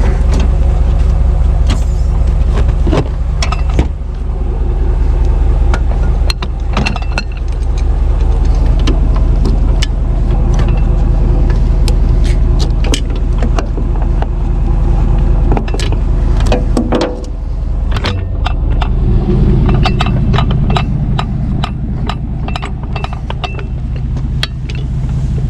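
A vehicle engine idling close by, a steady low hum, with irregular metallic clicks and clanks over it.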